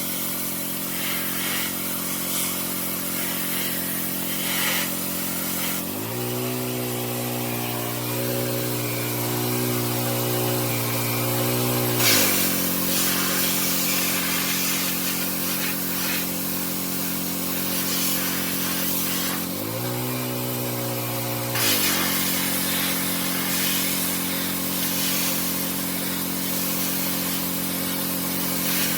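A roughly 20-year-old pressure washer running, its spray hissing. Twice its pitch drops and then comes back up: about six seconds in for some six seconds, and again about twenty seconds in for a couple of seconds.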